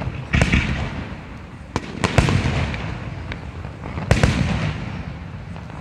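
Aerial firework shells bursting: four or five sharp booms a second or two apart, each followed by a rumbling echo.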